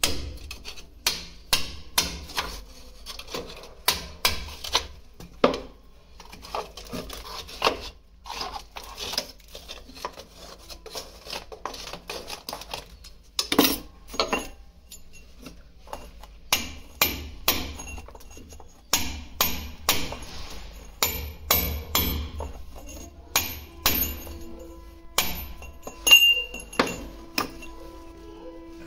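Repeated sharp knocks of hand tools striking during plumbing repair work, irregular at about one to two a second, some louder than others, over background music.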